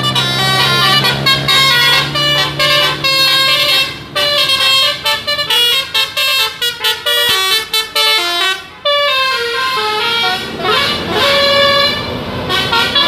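Bus 'telolet basuri' musical air horn playing a fast tune of short notes stepping up and down, breaking off briefly about nine seconds in and going on with longer held notes. A low steady hum sits under the first few seconds.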